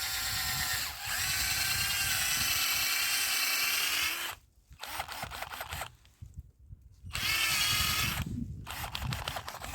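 Power drill boring a tap hole into a birch trunk to draw sap. The motor whines in one long run of about four seconds, stops, and runs again in a short burst of about a second near the end.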